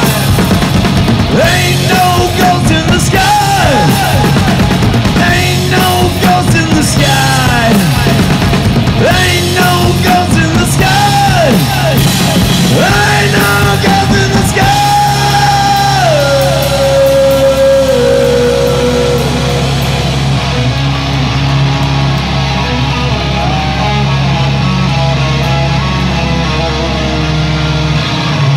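Loud live rock music from a two-piece band: heavily distorted electric guitar with sliding, bending notes over a drum kit. About two-thirds of the way through, the cymbal wash fades and a long held guitar note drops in pitch over a steady low drone.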